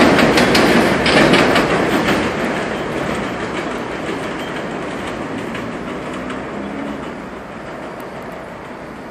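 R46 subway train leaving along an elevated line, its wheels clacking sharply at first, then the rumble fading steadily as it draws away.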